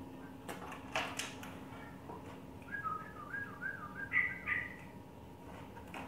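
A few knocks on the bars of a wooden bird cage, then a sooty-headed bulbul giving a string of short, repeated calls for about two seconds, a little higher near the end, as it is caught by hand inside the cage.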